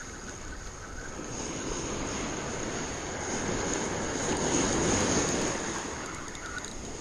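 Waves washing up the beach with wind rumbling on the microphone, a steady rush that swells to its loudest about four to five seconds in and then eases.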